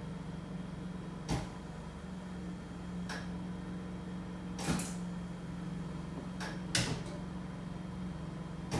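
Backup generator running with a steady hum, with about six sharp clicks and knocks spread through it, the loudest a little over a second in, just under five seconds in, and just under seven seconds in.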